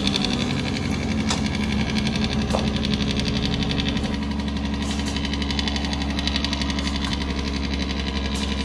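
Heavy dump truck's diesel engine running hard and steady, with a fast, even pulsing.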